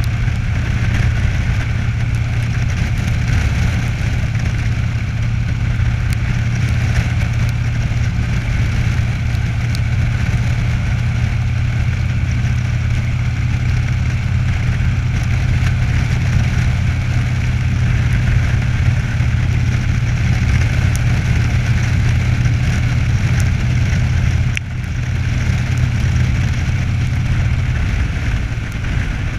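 Cruiser motorcycle engine running steadily while riding at road speed, heard from the rider's seat. The sound dips briefly once, most of the way through, then carries on.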